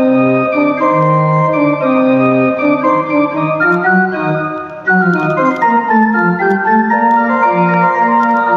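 Miniature Corndog Calliope playing a bouncy organ-like calliope tune of held notes, with a brief drop in loudness about five seconds in.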